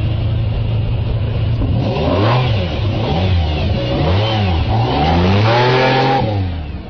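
Lamborghini Diablo's V12 engine running steadily at low revs, then revved up and down several times as the car pulls away, the last rev the longest, fading near the end.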